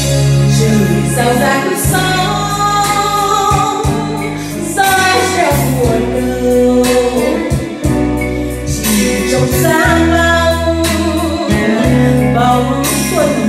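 A woman singing a slow Vietnamese song into a handheld microphone over recorded backing music with a steady beat.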